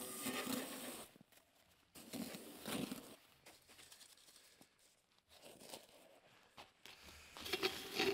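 Rustling and crinkling as camping gear is handled, in three short bouts with quieter gaps between.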